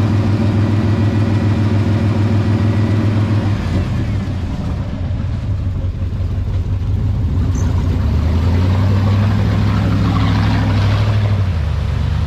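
Off-road buggy engine running steadily in a muddy water crossing, then pulling away under throttle, with water and mud splashing from the tyres as it drives out near the end.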